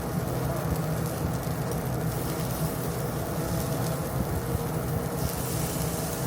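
Steady low hum and rumble from a tabletop gyukatsu grill and its flame, with faint sizzling of beef cutlet pieces searing on it.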